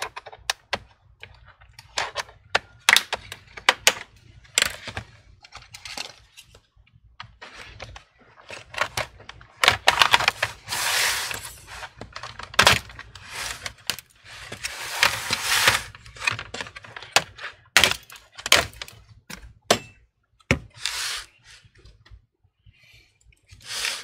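Bottom cover of a Lenovo IdeaPad 3 laptop being pried off: a long series of sharp clicks and snaps as its clips let go, with stretches of scraping as the pry tool is run along the seam.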